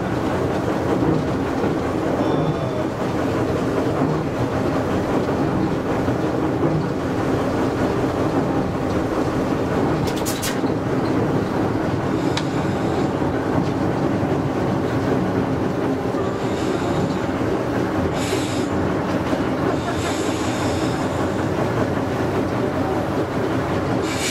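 Ruston & Hornsby diesel locomotive's engine running steadily as the train pulls away, heard from the cab, with its wheels rolling on the track. A few short hisses come later on.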